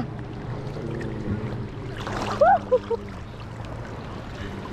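Horses wading through shallow sea water, the water sloshing and swirling around their legs. About two seconds in there is a brief burst of short, high rising-and-falling vocal calls, like a person whooping.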